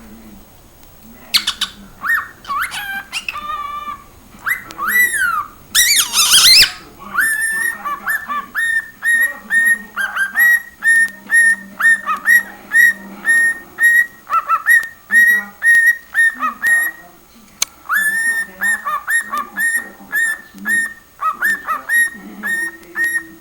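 Cockatiel whistling its song. Gliding whistled notes are broken by a loud, harsh burst about six seconds in. After that comes a long run of short, repeated whistled notes, about two a second.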